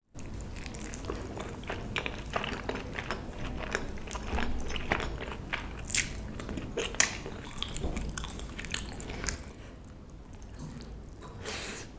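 A person biting and chewing food close to the microphone, with crisp, crunchy bites and irregular crackles; the chewing gets quieter and sparser about nine or ten seconds in.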